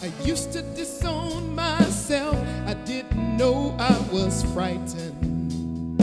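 Live band playing a country-flavoured song: drums, bass and guitar, with a lead line wavering in pitch over them.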